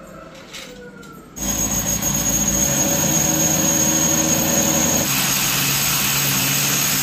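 Corded power drill boring into a masonry wall. It starts about a second and a half in and runs steadily with a high whine, sounding brighter about five seconds in.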